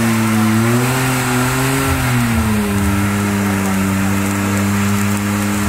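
BMW E34 5 Series engine held at steady revs during a burnout, rear tyres spinning in place. Its pitch wavers for the first two seconds or so, then holds steady.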